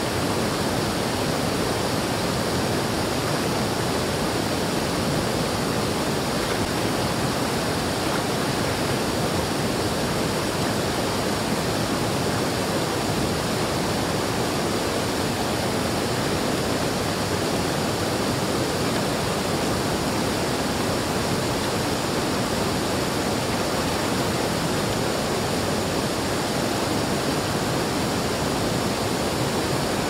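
Steady, loud rush of a small waterfall pouring over rocks into a river pool, unbroken throughout.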